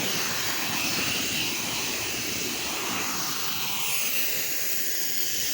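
Pressure washer spraying a high-pressure rinse jet, a steady hiss that holds even throughout.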